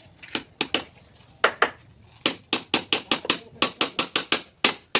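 Sharp knocks of a hammer striking wood: a few scattered blows, then a quick run of about five or six a second from about two seconds in.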